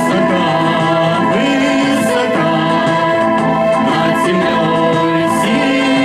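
A man's voice through a microphone and a few young voices singing a song together, over a steady instrumental accompaniment played through a PA speaker.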